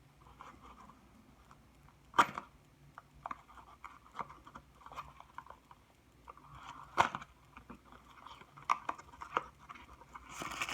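Small plastic packaging being opened by hand: scattered light clicks and crinkles, with two sharper plastic snaps about two seconds in and about seven seconds in, and denser crinkling starting near the end.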